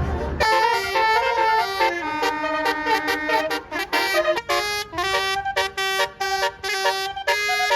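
Basuri 'telolet' bus horn, a multi-tone horn playing a quick melody of short stepped notes with several tones sounding together. A low rumble runs under the first half-second and then stops.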